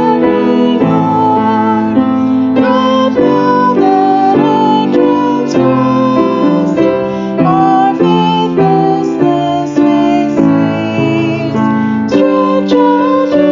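A hymn played as music led by piano, with slow, sustained chords.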